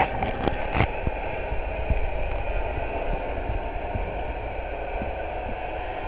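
A motorboat's engine and propeller heard from underwater as the boat leaves, a steady drone with a low rumble. A few sharp clicks sound in the first second.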